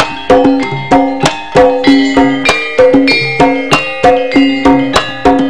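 Javanese gamelan playing an instrumental passage: struck notes, about three a second, each ringing on over the next, with light drum strokes.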